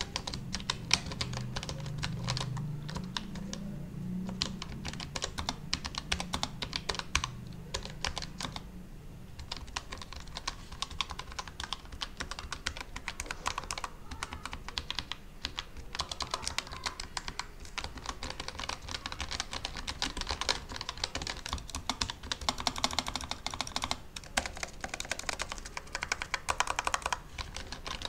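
Fast, continuous typing on a Keychron K1 V4 low-profile mechanical keyboard with brown switches, a steady stream of key clacks heard as a typing sound test.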